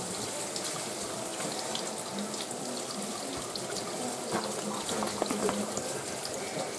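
Cold water running from a kitchen tap and splashing steadily over the lid of a Soffritto pressure cooker standing in a steel sink. The cooker is being quick-cooled to bring its pressure down.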